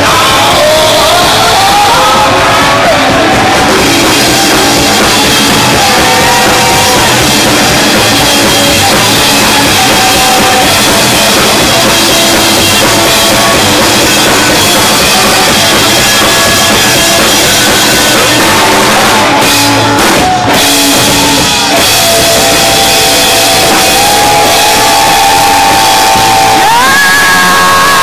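Rock band playing live and loud, with the drum kit to the fore under sustained guitar and other pitched parts.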